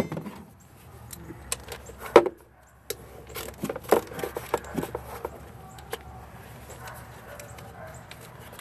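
Scattered metal clicks and knocks of a 10 mm socket and ratchet being handled and fitted onto the nuts of a Toyota Yaris's plastic engine cover, the loudest knock about two seconds in.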